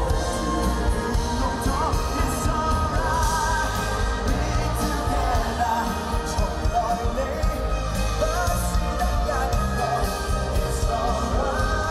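Live rock band playing with an orchestra: a male lead singer sings over bass guitar, guitar and strings, the sung notes wavering as they are held.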